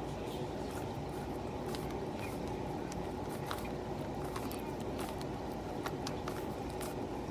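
A well-used 3x3 Rubik's cube being turned quickly in the hands, its plastic layers clicking irregularly several times a second, over a steady background noise.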